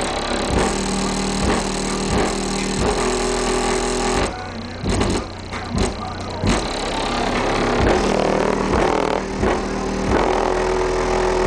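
Music played loud through a car's aftermarket sound system with Selenium Street Bass speakers: sustained notes over heavy bass, broken by repeated sharp hits.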